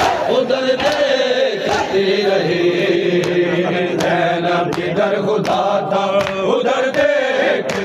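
Crowd of men chanting a noha in unison, with sharp slaps of hands beating bare chests (matam) keeping time at a little under once a second.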